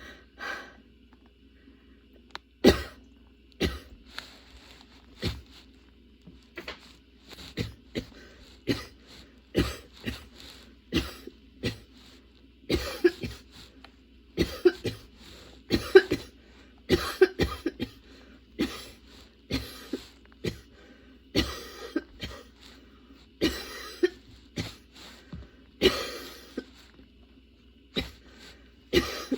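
A woman coughing in a long, unbroken fit: sharp coughs one after another, about one or two a second, starting about two and a half seconds in, with a few longer rasping stretches between them.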